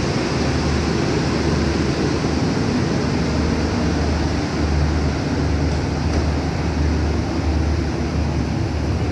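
Passenger express train pulling out along the platform, its coaches rolling past with a steady noise of wheels on rail and an uneven low rumble that swells and dips.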